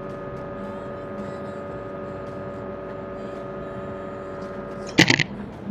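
Espresso machine pump humming steadily while a shot extracts. About five seconds in the hum stops with a short, loud burst of noise, as the shot is ended.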